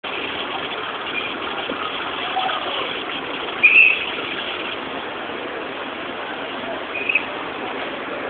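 Steady outdoor noise of a street crowd and traffic. A short shrill high sound rings out a little before halfway, and two quick ones come near the end.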